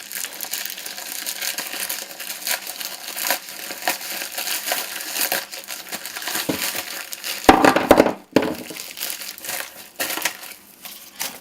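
Packaging crinkling and crumpling as a parcel is opened by hand, with a louder rustling burst about two-thirds of the way through.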